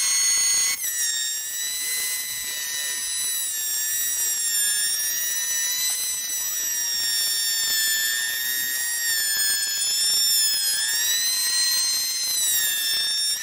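Electric hand planer running as it shaves along the edge of a board: a steady high-pitched motor whine whose pitch wavers slightly and rises a little near the end.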